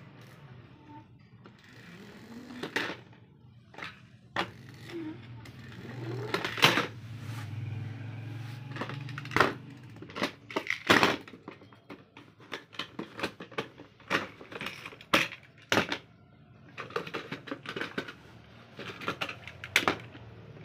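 Diecast metal toy cars being handled and set down on a plastic storage case: irregular clicks, taps and knocks of metal on hard plastic, some louder clacks among them.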